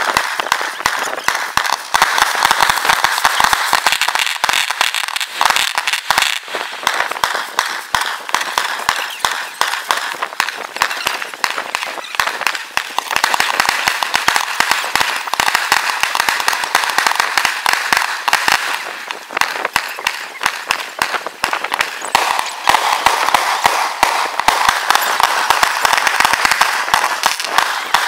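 Fireworks display: a dense, continuous crackle of many small bangs and pops, thinning a little around the quarter mark and again after the middle before building up again.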